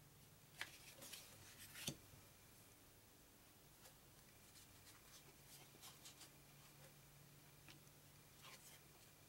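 Near silence with a few faint taps and light scrapes as thin cardboard pentagon map tiles are set down and stacked on a wooden table; the sharpest tap comes about two seconds in. A faint steady low hum lies underneath.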